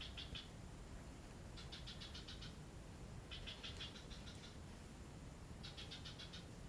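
An animal's chirping call: short trains of rapid, high-pitched pulses, about ten a second, each train lasting about a second and repeating about every two seconds, four times.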